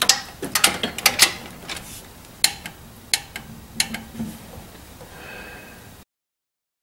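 Sharp metallic clicks from a torque wrench and socket as the cylinder head bolts on a Chevy Vortec 5.7 small block are torqued to about 23 ft-lb. There is a quick run of clicks at first, then single clicks a second or so apart. The sound cuts off abruptly near the end.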